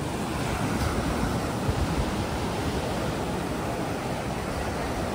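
Sea surf breaking and washing up the sand in a steady rush, with wind rumbling on the microphone.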